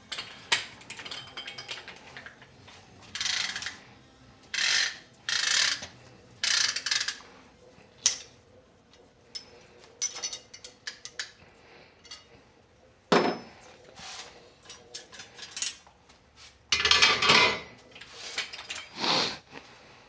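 Hand tools working on a Walker Evans coilover shock: a run of short metallic clicking and scraping bursts with sharp clicks between them, the longest near the end.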